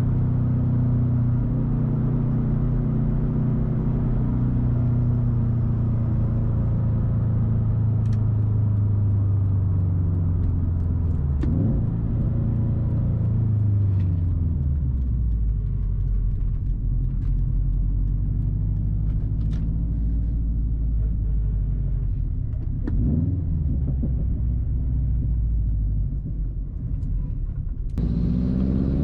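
Turbocharged 2.5-litre flat-four of a 2013 Subaru WRX STI through a loud Tomei titanium turbo-back exhaust, heard on the move: the engine note falls as it slows over the first dozen seconds, settles into a low steady rumble with a few sharp clicks, then rises again near the end as it accelerates.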